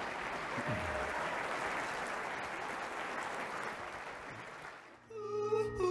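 Audience applauding, dying away about five seconds in. Music with held notes starts near the end.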